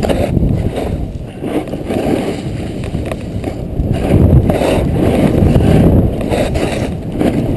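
Wind buffeting the camera's microphone, mixed with the snowboard sliding and scraping over groomed snow. The rushing noise rises and falls with the turns and grows louder about halfway through.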